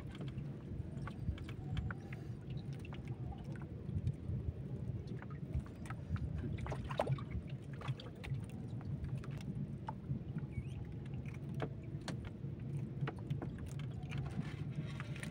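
Water lapping against the hull of a small boat, a low, uneven wash, with scattered light clicks and knocks from fishing line and tackle being handled.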